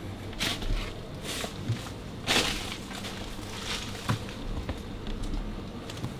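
Footsteps crunching and scuffing, irregular and uneven, the loudest a little over two seconds in.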